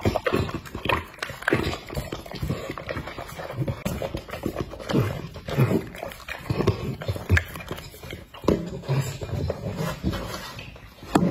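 A dog eating broth and soft food from a glass bowl: irregular wet lapping, slurping and smacking, with sharp clicks from its mouth or the bowl. Near the end it is licking the nearly empty bowl.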